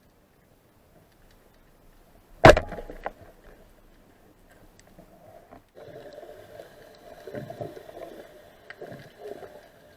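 A single sharp, loud crack about two and a half seconds in, with a smaller click just after, during a spearfishing dive. From about six seconds a steady hum with scattered knocks sets in.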